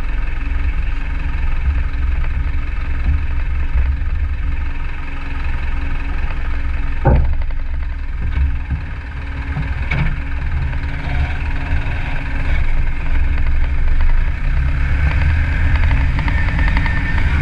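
Isuzu NPS 75-155 4x4 truck's diesel engine running steadily on the drive back, with two sharp knocks about seven and ten seconds in.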